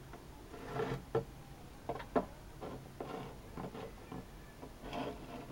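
Scattered light clicks and taps at irregular intervals, the sharpest about two seconds in, over a faint steady hum.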